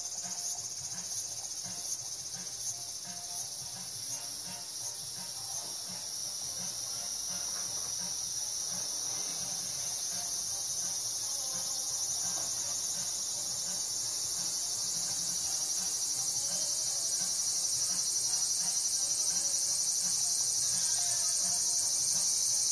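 Insect song: a high buzzy chirp repeating about one and a half times a second, which runs together about six seconds in into a continuous high buzz that grows steadily louder.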